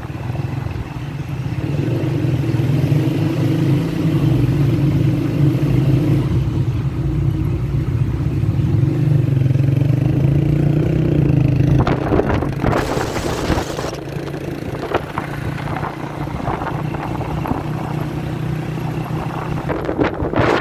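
Motorcycle engine running steadily under the rider, heard from the bike itself, louder for the first half and softer after about twelve seconds. A short burst of hiss comes just after the engine eases off.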